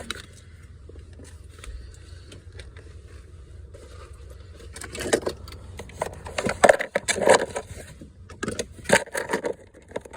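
Key fob and keys jangling, with plastic clicks and scrapes as the fob is handled at the truck's console programming slot; the handling starts about halfway through, over a low steady hum.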